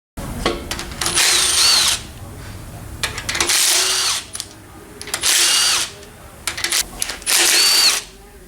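Cordless power driver run in four short bursts about two seconds apart, each a whine that spins up and winds down, as fasteners are run off while taking the engine apart to reach the lifters.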